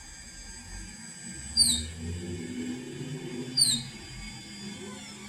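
Ender 3 3D printer's X axis squeaking twice, about two seconds apart, as the carriage travels toward the right; the squeak comes at set spots along the axis and not when moving left. A faint steady machine whine runs underneath.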